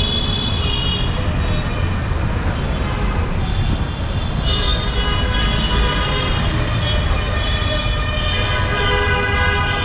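Busy city street traffic: a steady low rumble of engines from passing and idling buses, cars and motorbikes, with a high, steady tone joining in about halfway through.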